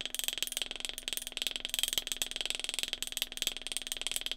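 Stone pestle pounding white peppercorns in a granite mortar, a quick, even run of small taps as the pepper is crushed fine.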